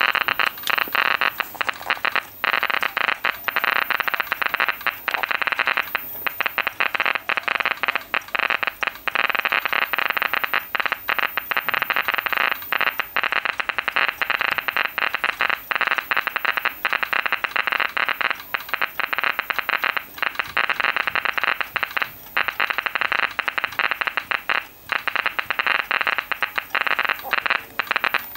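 Geiger counter crackling with rapid, dense clicks as it picks up radiation from the radium-painted dials of old clocks.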